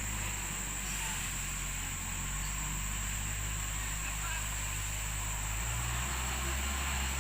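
Engine of a fertilizer-spreading machine running steadily, with a low even hum that shifts slightly about six seconds in; a steady high-pitched hiss sits over it.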